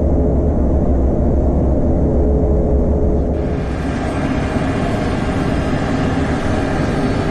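Boeing 747SP heard from inside, rolling on the runway after landing: a steady deep rumble with engine and airflow hiss. The hiss grows brighter about three seconds in.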